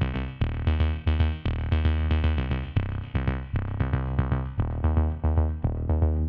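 Background music: electronic track with a steady beat, synthesizer notes over a heavy bass line.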